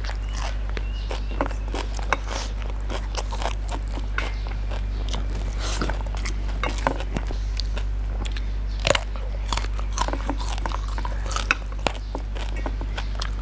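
Close-up chewing and crunching of raw, crisp vegetables, with irregular crunches throughout and a steady low hum underneath.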